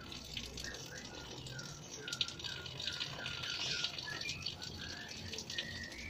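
Lovebirds chattering in an aviary: a dense, high twittering from many birds, with one call repeated about three times a second for several seconds.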